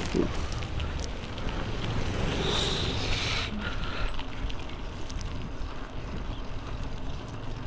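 Wind buffeting the microphone over the steady rumble of a motorcycle being ridden. About two and a half seconds in a hiss swells and cuts off suddenly a second later.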